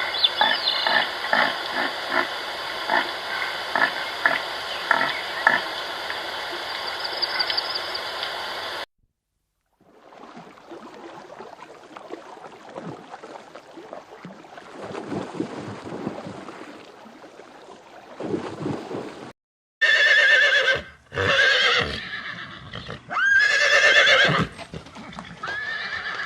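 Horses whinnying: loud calls with a quavering pitch come several times in the last third, after a stretch of steady sound with regular knocks and a quieter noisy passage.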